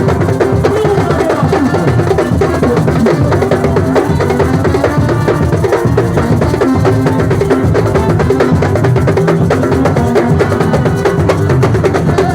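Percussion ensemble playing drums in a dense, steady rhythm without a break.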